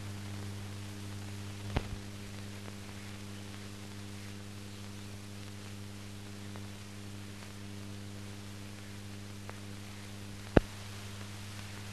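Steady electrical mains hum with hiss on a soundtrack that holds no recorded sound, broken by two sharp clicks, one about two seconds in and one near the end.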